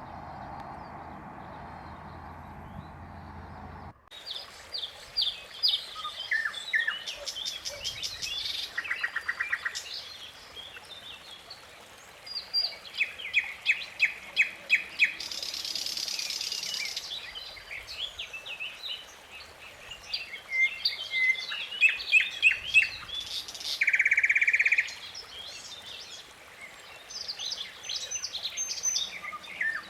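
Several songbirds singing and calling: many short, high chirps and rapid trills, with one loud buzzy trill near the end. A steady low hum cuts off suddenly about four seconds in, before the birdsong.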